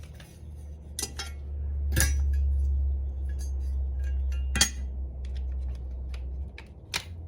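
Small metal parts and hand tools clinking and tapping as the mirror hinge bracket is worked loose with its pins knocked out: several sharp clinks, the loudest about two seconds in and about four and a half seconds in, over a low steady rumble.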